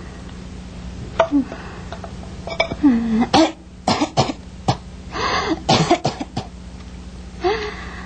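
An elderly sick woman coughing in several hoarse fits, with strained groans between them, over a steady low hum.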